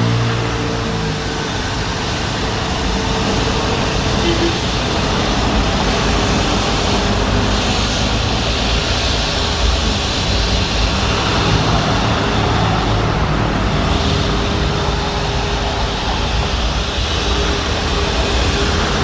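Airbus A340-600's four Rolls-Royce Trent 556 turbofans running at low power as the airliner rolls slowly past: a loud, steady jet rumble and whine.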